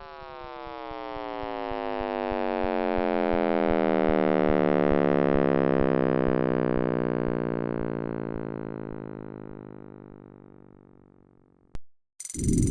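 Electronic sonification of space data: a stack of many tones sliding slowly downward in pitch together, swelling to loudest in the middle and fading away, with faint regular ticks underneath. A click comes near the end, and a loud rough noise starts just before the end.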